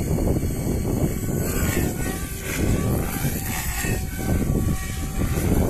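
SAB Goblin Kraken 580 electric RC helicopter in flight: the whine of its rotor and electric motor rises and falls in pitch as it manoeuvres, under heavy wind noise on the microphone.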